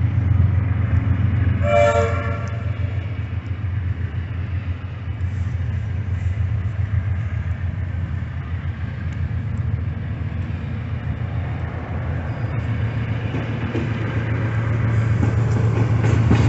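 A train horn sounds once, briefly, about two seconds in, over a steady low rumble that grows louder toward the end.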